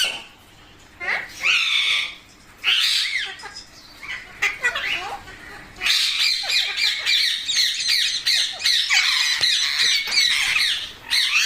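Pet green parrots squawking in shrill screeches. A few separate calls come in the first half, then there is almost continuous squawking for about five seconds.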